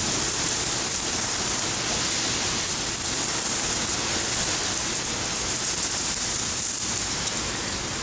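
Heavy rain pouring steadily, an even hiss of the downpour on pavement and roofs.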